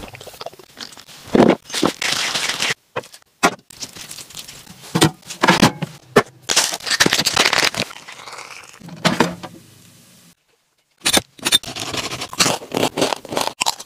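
A run of short cooking and handling sounds cut together. After a brief silence about ten seconds in, a knife crunches and crackles through the crisp skin of a roasted pork knuckle.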